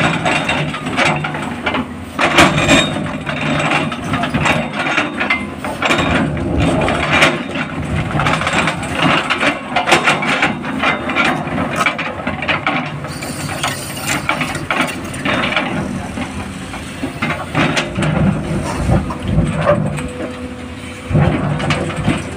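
Komatsu PC300 excavator's diesel engine running steadily under load while its steel bucket scrapes and digs through broken rock and gravel, with frequent cracks and clatter of stones.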